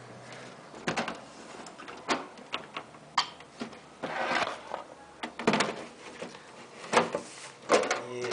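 Hands working inside a desktop computer case: irregular sharp clicks, knocks and rattles of plastic and metal parts, with a few short scraping sounds, about a second apart.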